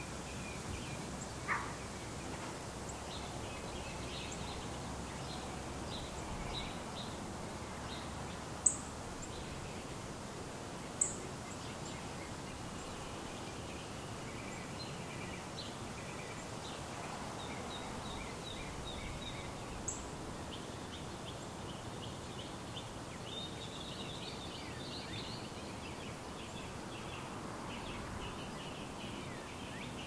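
Small birds chirping on and off in the trees over a steady, low background noise of outdoor ambience. A few brief, sharp, high chirps stand out above the rest.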